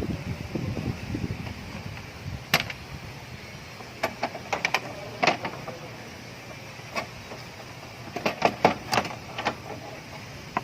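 Sharp clicks and knocks of hand tools and parts being handled while the radiator fan assembly is taken apart: single knocks, then quick clusters of several around the middle and near the end. A low rumble fades out in the first second or two.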